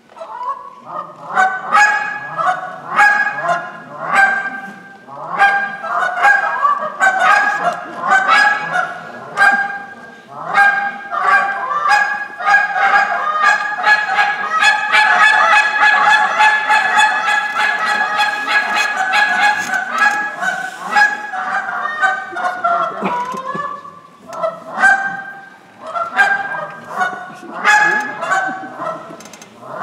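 A hand-blown goose call played as a contest routine: a series of short honks and clucks, then a long run of rapid, unbroken calling in the middle, then short separate notes again.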